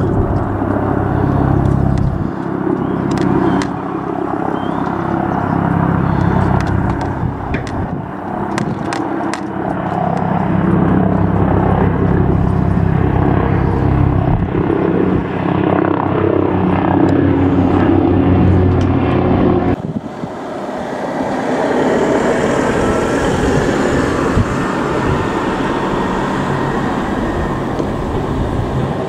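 Helicopter flying close overhead, its rotor beating loudly with a deep, throbbing low end. About two-thirds of the way through, the sound cuts to a more distant helicopter: a steadier rushing sound with much less low beat.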